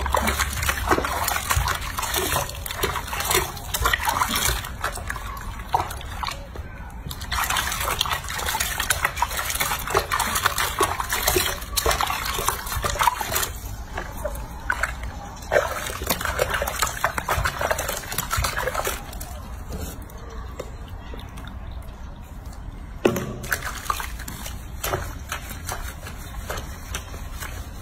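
Soapy water sloshing and splashing in a washbasin as hands scrub and rinse a baby monkey, in irregular small splashes.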